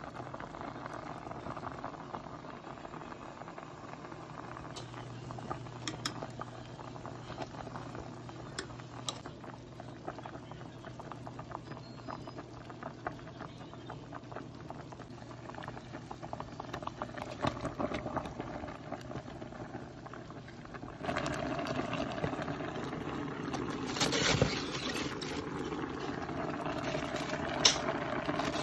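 Pot of chicken, cabbage, shiitake and daikon boiling: a steady bubbling hiss with fine crackles. About two-thirds of the way through it gives way abruptly to a louder steady noise, with a knock and, near the end, a sharp click.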